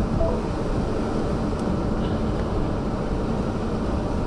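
Steady low rumble of car cabin noise, with a faint steady hum from the vehicle.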